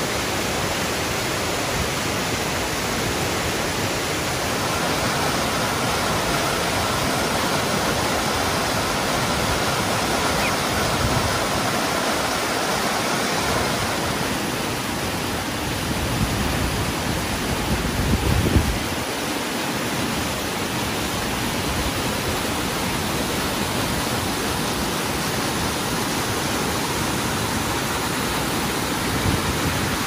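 Waterfall and whitewater rapids rushing: a steady, loud wash of falling and churning water, with a few brief low rumbles, the strongest about eighteen seconds in.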